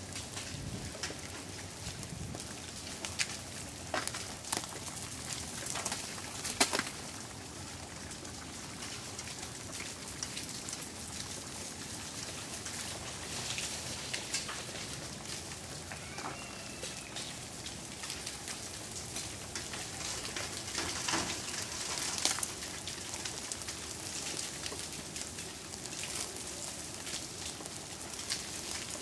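Steady patter of melting ice and meltwater dripping and falling from ice-coated tree branches, with scattered sharper clicks and ticks as bits of ice drop onto the crusted snow.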